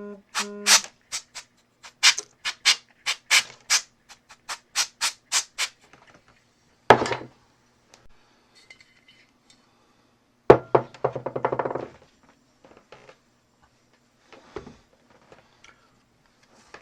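Canned compressed air sprayed in a quick series of short hissing puffs, then two longer blasts, blowing glass fragments and old adhesive out of a phone's camera-lens recess.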